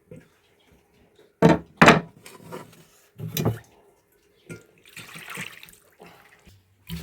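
Water splashing and pouring in a few short bursts, with a longer run of water about five seconds in.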